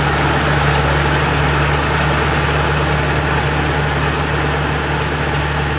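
Engine of a homemade Vietnamese rice combine harvester running steadily: a constant low drone with a noisy mechanical rush over it.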